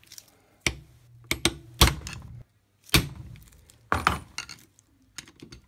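Hammer blows on a steel tool set against the centrifugal clutch's retaining nut on a 125 cc ATV engine, struck to break the nut loose. About six hard metallic strikes, irregularly spaced and the loudest about two seconds in, some ringing briefly, then a few lighter taps near the end.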